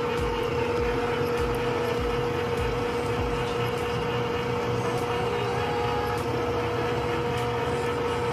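Countertop electric can opener running, a steady motor hum with one strong pitch, as it turns a food can and cuts around its lid.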